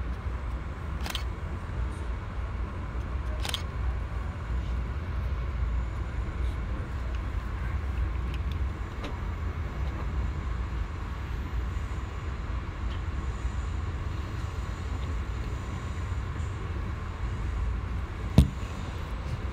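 Steady low rumble heard aboard an Amtrak Lake Shore Limited passenger train, with a couple of faint clicks early and one sharp knock near the end.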